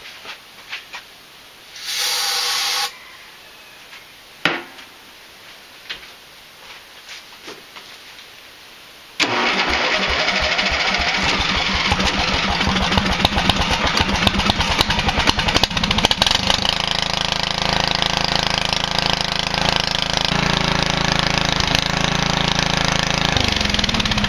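A short aerosol hiss of starter fluid being sprayed about two seconds in. About nine seconds in, the Briggs & Stratton engine of an AYP Wizard riding mower starts suddenly and runs steadily. Right at the end it begins to wind down and die as the wiring harness is plugged back in, which the owner takes to mean that either the ignition switch is bad or the harness is grounding out.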